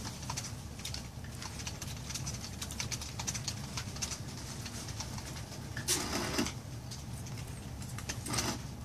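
Pen tip scratching on a card while inking line work: quick, irregular short strokes, with two longer, louder strokes about six seconds in and near the end, over a steady low hum.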